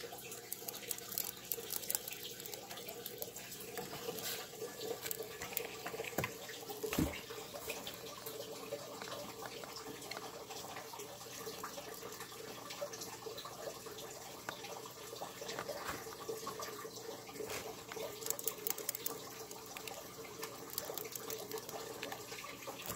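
A rabbit chewing through stiff hay stems, a run of small dry crunches and clicks, over a steady hum. One louder knock comes about seven seconds in.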